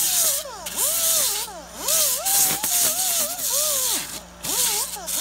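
Air-powered angle grinder with a 24-grit sanding disc working Styrofoam: a loud rush of air and abrasion over a whine that keeps sagging and rising in pitch as the disc is pushed into the foam. The rush drops out briefly twice, about a second and a half and about four seconds in.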